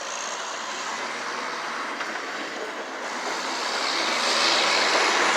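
Fire truck's engine running with a steady rushing sound, growing louder over the last couple of seconds.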